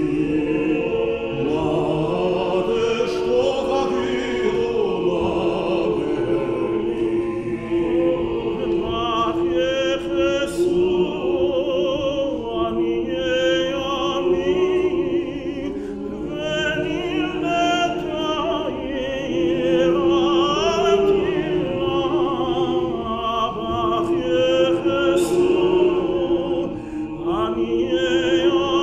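Cantor singing a liturgical chant in a tenor voice with a wide, wavering vibrato, over a men's choir holding long notes.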